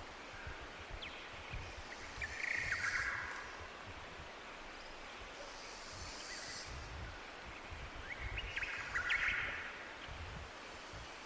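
Tropical birds calling over the steady rush of a jungle waterfall: two bouts of quick chirps, about two seconds in and again near the end, with a high-pitched twittering in between.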